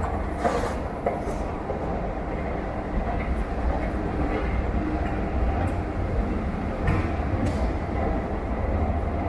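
Long metro-station escalator running: a steady low mechanical rumble from its drive and moving steps, with a few light clicks.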